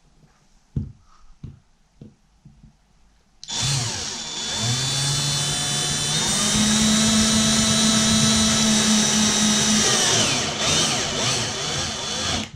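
A few light knocks, then a power drill driving a wood screw through a blind bracket into a plywood ceiling: the motor starts about three and a half seconds in, climbs in pitch, runs steadily and winds down before stopping near the end.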